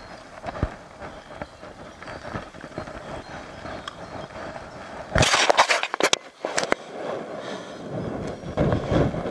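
Footsteps through grass and rustling handling noise close to the microphone, with a cluster of loud rustles and knocks between about five and seven seconds in.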